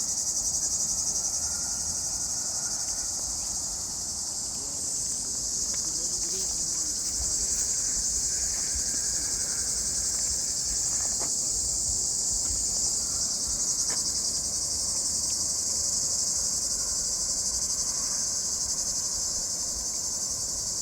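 Cicadas calling in a dense chorus: a continuous high-pitched buzz that holds steady without a break.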